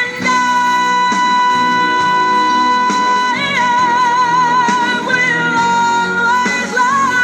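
A canned sound-effect clip of a singer holding one long high note for about three seconds, then wavering into vibrato and moving through a few more notes, with music behind it.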